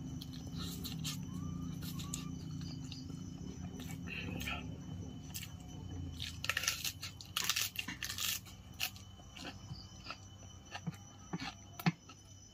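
Someone eating spicy instant ramen noodles: wet slurping and chewing, loudest in a run of noisy slurps just past the middle, followed by a few sharp clicks. A low steady hum sits underneath and fades after about six seconds.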